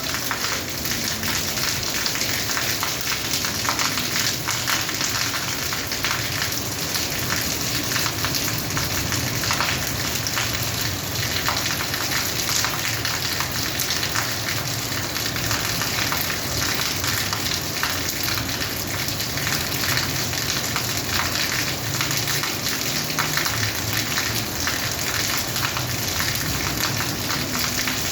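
Steady rain falling on a rooftop, a dense, even hiss of drops ticking on hard surfaces.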